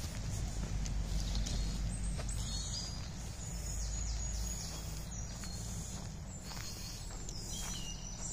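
Small songbirds singing short, high, thin phrases, several of them falling in pitch, over a steady low rumble. Soft footsteps on a forest floor covered in conifer needles.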